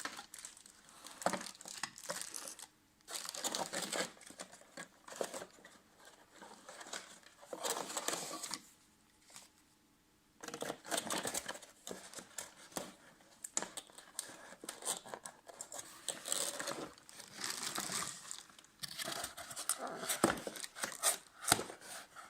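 Cardboard box packaging and styrofoam inserts being handled and pulled at by hand: irregular rustling, scraping and crinkling, with a short pause about halfway through.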